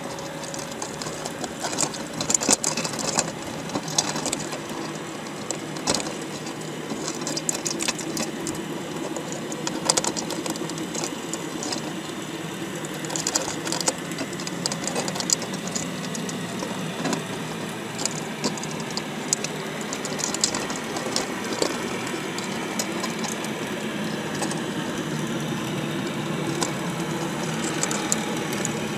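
Underwater sound inside a wire crab pot full of crabs: a steady low hum with frequent sharp clicks and taps as the crabs' shells and legs knock and scrape against the camera housing and the wire mesh.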